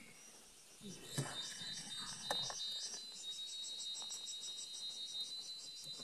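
Insects chirping in a steady, rapidly pulsing high chorus over a constant high whine, starting about a second in. A few sharp knocks in the first half.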